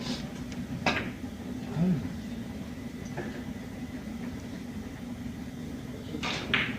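Billiard balls clicking against each other over the steady low hum of the room: a sharp click about a second in, a dull knock around two seconds in, and a quick pair of clicks near the end.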